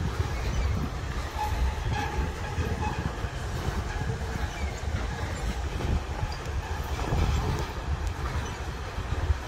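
A train running along the rails: a steady low rumble that holds throughout.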